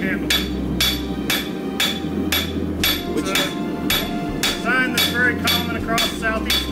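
Hand hammer striking a red-hot 80CrV2 high-carbon steel blade on an anvil, a steady rhythm of about two blows a second, each with a short metallic ring.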